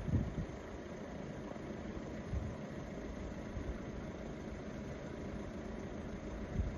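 A car engine idling steadily, with wind buffeting the microphone at the start and again near the end.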